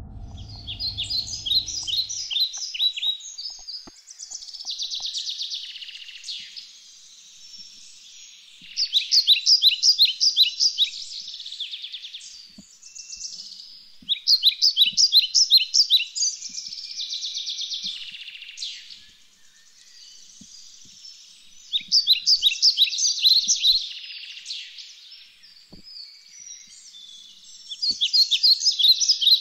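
Songbird singing: loud phrases of rapid, repeated high chirping notes, each phrase lasting a second or two, coming again every few seconds.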